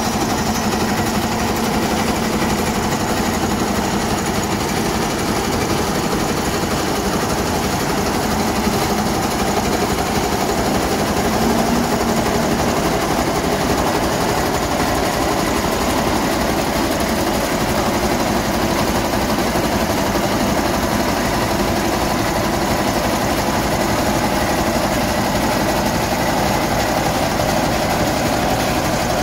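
Bomag BW212D-2 single-drum vibratory roller running steadily, its diesel engine and vibrating steel drum compacting earth fill in rocking-mode vibration.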